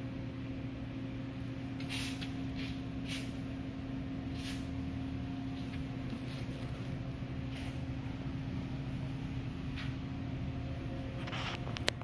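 Steady electric hum of a running Lennox PureAir air purification demonstration unit, its fan motor running at a constant pitch, with a few soft clicks and rustles scattered through.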